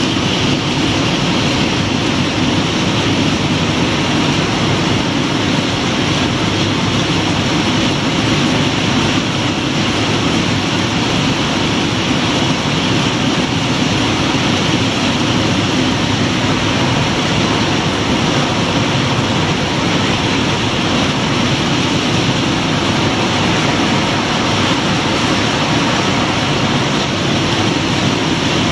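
Heavy rain pouring steadily onto a walled concrete rooftop: a loud, even rush of falling water.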